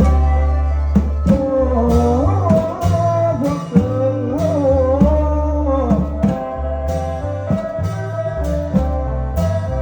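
Amplified Thai folk procession music from a klong yao long-drum band: a heavy stepping bass line under regular drum hits, with a bending, sliding melody line from about one second to six seconds in.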